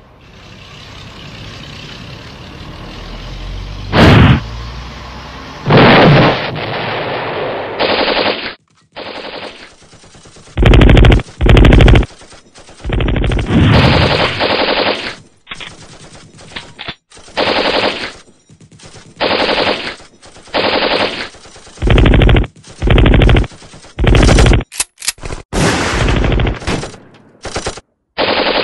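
Gunfire: a noise swells over the first four seconds, a single loud shot cracks about four seconds in, then machine guns fire in repeated short bursts with gaps between, and a few quick single shots come near the end.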